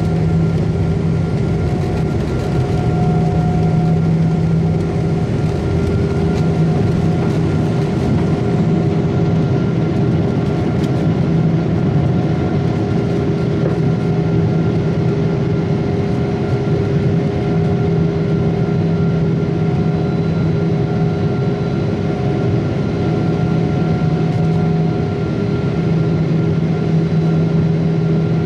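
Jet airliner's underwing engines at takeoff power heard from inside the cabin during the takeoff run and climb-out. A loud, steady roar carries several even humming tones, with a few faint rattles and clicks in the first several seconds.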